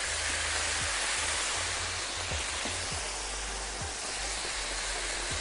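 Breadcrumbed beef escalope slices frying in hot oil in a pan: a steady sizzle.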